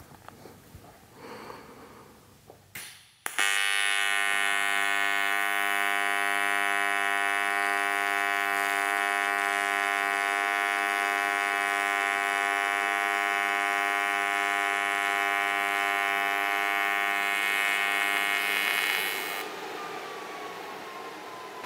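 AC TIG welding arc on aluminum, striking suddenly about three seconds in and holding a steady, even buzz for about fifteen seconds. Near the end it tapers off as the foot pedal is feathered down to fill the crater, leaving a softer hiss of shielding gas post-flow from the torch.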